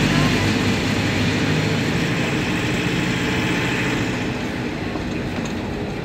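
Engine and road noise of a moving vehicle, heard from inside it: a steady low hum under a rushing hiss, easing slightly about four seconds in.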